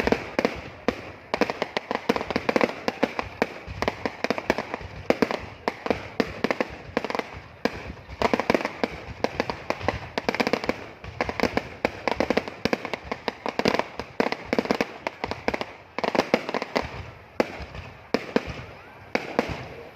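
Fireworks display going off: a dense, continuous crackle of many sharp pops and bangs in quick succession.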